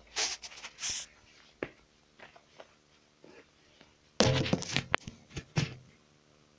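Rustling and knocks from a phone being handled and carried, with a louder burst of noise about four seconds in.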